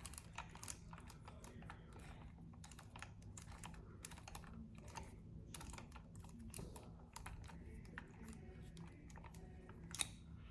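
Faint, irregular small clicks and ticks of metal and plastic parts being worked by hand as a screw goes into a 3D-printed front grip, with one sharper click near the end.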